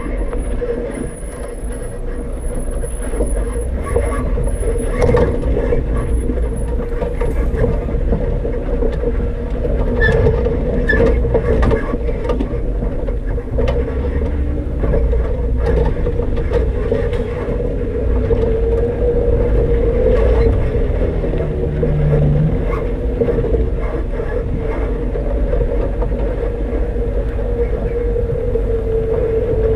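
Off-road vehicle driving a rocky dirt trail: a steady engine drone with tyres over gravel and scattered knocks and rattles.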